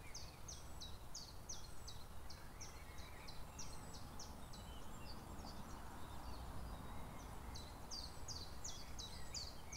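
Outdoor ambience: a steady run of short, high-pitched chirps, about two or three a second, over a faint low rumble.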